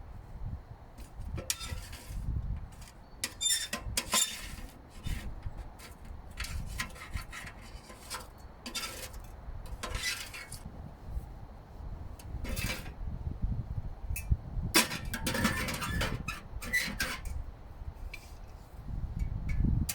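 Metal camping gear clinking and clattering in irregular bursts as it is handled and packed away, over a low rumble.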